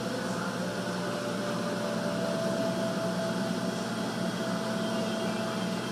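Steady mechanical hum with a faint high whine held on one note, unchanging throughout.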